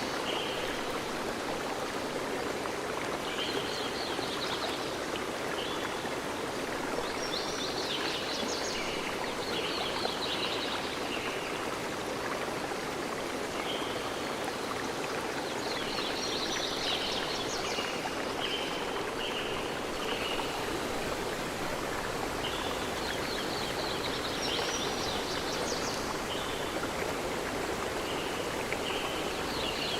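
A stream running steadily, with a songbird singing short bursts of quick, high chirps every several seconds.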